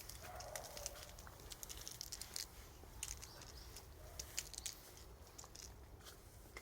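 Faint scattered rustling and light pattering clicks: a kitten batting and pouncing at a foxtail grass stem.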